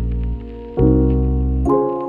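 Background music: soft sustained chords, with a new chord struck about a second in and another near the end.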